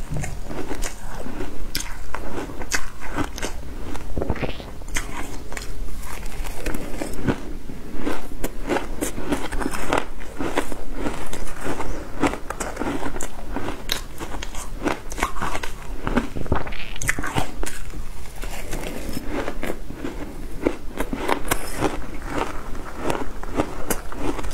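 Person biting and chewing shaved ice: an irregular run of sharp, crackling crunches, several a second, without pause.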